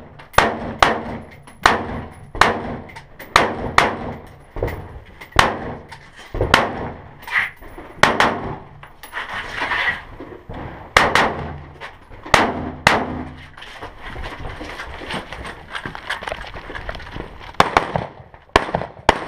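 Rifle fired shot after shot in quick succession during a timed match stage, roughly one to two shots a second, each crack trailing off in an echo. The shots pause for a few seconds late on, then a quick string of several more comes near the end.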